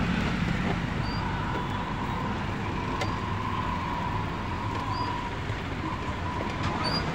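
Road traffic passing on a busy street: a steady mix of car and motorbike engines and tyre noise.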